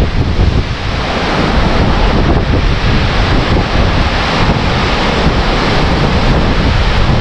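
Strong wind gusting through tall trees and buffeting the microphone. It is loud and steady, with a heavy low rumble from the wind hitting the mic.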